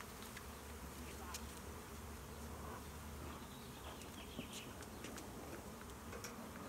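Honeybees buzzing steadily around a feral colony disturbed during its removal, with a few faint clicks.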